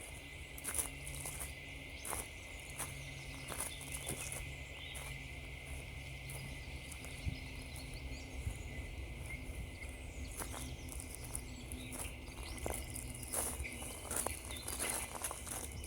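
Footsteps crunching on frozen ground and frosty leaves at a steady walking pace.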